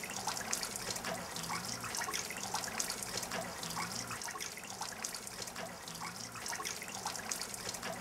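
Water running and dripping, with a dense patter of small drops throughout and a faint low hum underneath.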